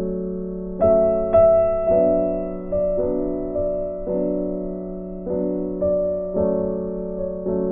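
Slow, gentle background piano music: single notes struck about twice a second, each ringing and fading, over a steady low held tone.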